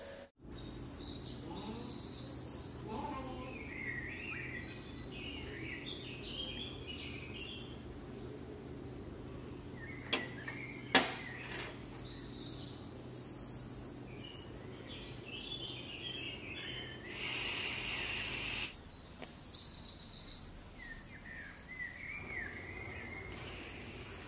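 Small birds chirping and twittering over a steady low hum. Two sharp knocks come about ten and eleven seconds in, and a short burst of hiss comes a few seconds later, after which the hum stops.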